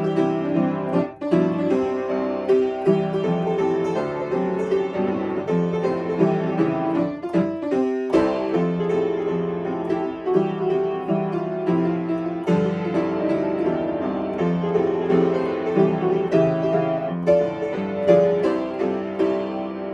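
Upright piano playing a tune, with a short break about eight seconds in before the playing picks up again.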